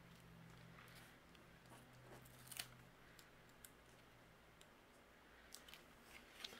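Near silence: a few faint taps and clicks of paper and card being handled as a cut-paper tree is pressed into place on a card. A faint low hum stops about three seconds in.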